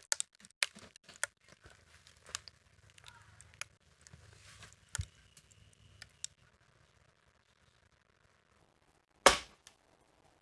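Wood fibres cracking and snapping in quick, irregular cracks as a split opens along a post being rived, then a single loud knock about nine seconds in.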